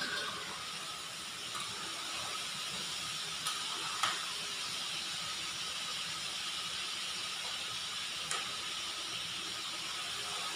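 Chicken frying in a wide pan of hot oil, a steady sizzle, with a few sharp clinks of a metal utensil against the pan, the loudest about four seconds in.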